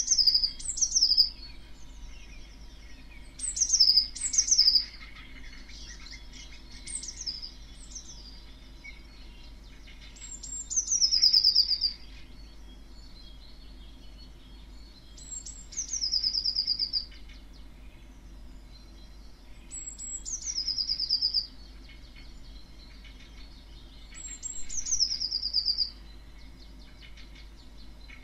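A small songbird singing a short phrase over and over, about every four to five seconds: each phrase starts on a high note that drops into a brief trill. The first two phrases come in quick pairs.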